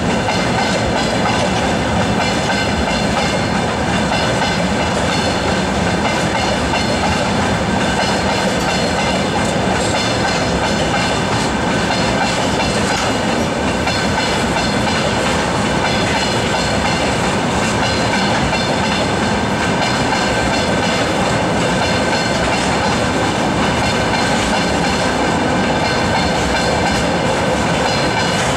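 Freight train of railway tank cars rolling steadily past, its wheels running over the rails in a loud, even, continuous rumble.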